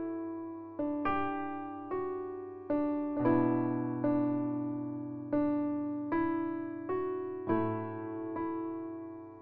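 Background music: piano chords struck about once a second, each left to ring and fade before the next.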